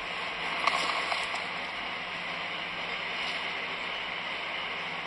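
Steady hiss of background noise, with a few faint clicks about a second in.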